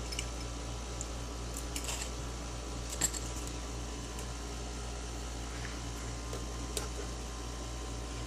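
Handling noise from a multimeter as its tight silicone rubber boot is worked off the plastic case: faint scuffs and small clicks, with one sharper click about three seconds in, over a steady low hum.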